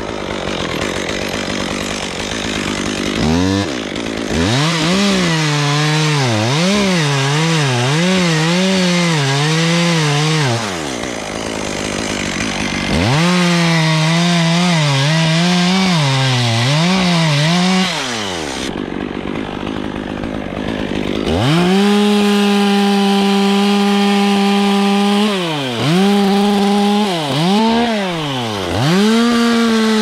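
Gas chainsaw cutting into an oak limb. Its engine speed rises and falls about once a second in two stretches, dropping to idle in between, then holds steady at high speed through the last third, dipping briefly twice.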